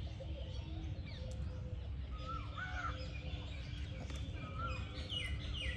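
Birds calling: short arched notes repeated every second or so, and a couple of quick falling calls near the end, over a steady low rumble.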